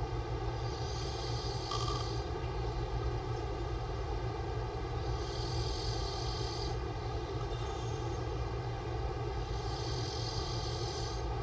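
A man snoring with his mouth open, drawing three airy, rasping breaths about four and a half seconds apart, over a steady droning hum.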